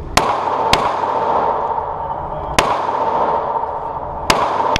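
Taurus Curve .380 pistol firing four shots, echoing in an indoor range: two in quick succession, then two more, each spaced under two seconds apart.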